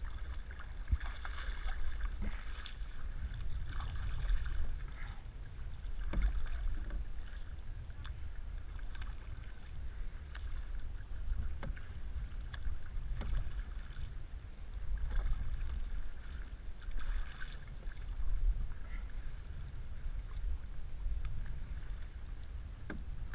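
Canoe being paddled: paddle blades dip and swish through the water in repeated strokes while water washes along the hull. A steady low wind rumble runs on the microphone, and there are a few light knocks.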